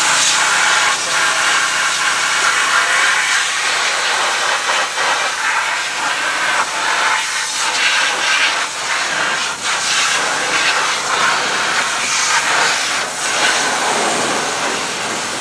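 Steady hiss of a detailing steam cleaner's jet from an extended nozzle, spraying steam and hot water over a car engine bay; the hiss wavers in strength as the jet is moved about.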